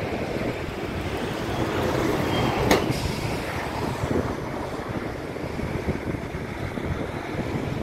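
Steady noise of a citrus juice plant's machinery running, with wind buffeting the microphone. A sharp click comes a little under three seconds in.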